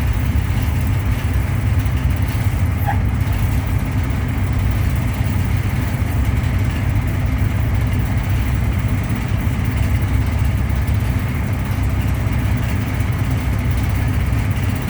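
Truck engine idling with the air conditioning running, a steady low rumble heard from inside the cab.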